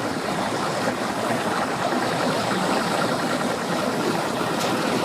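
Boat engines, several at once, running in a steady drone.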